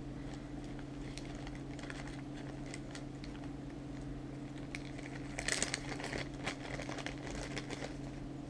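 Small clear plastic zip-top bags crinkling and rustling as they are handled and opened, with a louder burst of crinkling about five seconds in. A steady low hum runs underneath.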